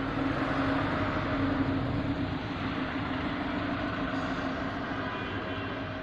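Street traffic: a vehicle passing, swelling in the first couple of seconds and easing off, over a steady low hum.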